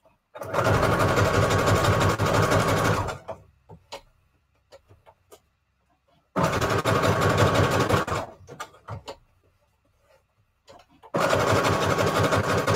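Electric sewing machine stitching through paper in three runs of about two to three seconds each, with quiet gaps between them. Small clicks and taps come in the gaps.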